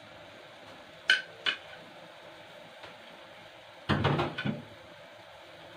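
Metal cookware clinking: two light ringing taps on a cooking pan about a second in, then a louder clatter of metal pan and utensil about four seconds in.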